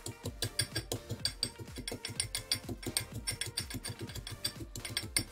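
Garlic being pounded by hand in a small steel cup: a rapid, even run of sharp metallic knocks.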